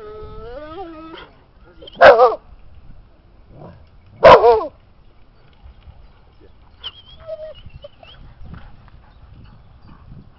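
Dog barking twice, loud and about two seconds apart, after a short whine.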